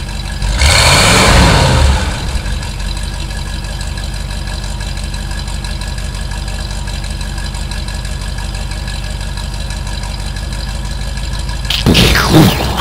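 Dubbed car engine sound effect idling steadily, with a louder swooping rise and fall about a second in. A sudden loud burst comes near the end.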